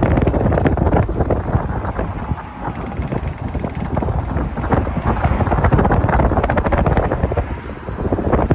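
Heavy wind buffeting and rumbling on the microphone over the noise of a moving road vehicle, dipping briefly about two and a half seconds in and again near the end.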